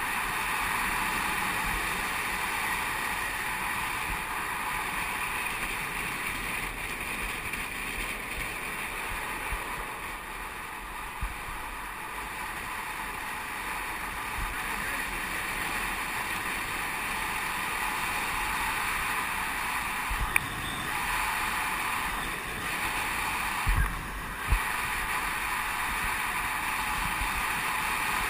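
Steady rush of wind on the microphone with the roll of longboard wheels on asphalt at downhill speed, and a few short thumps about three-quarters of the way in.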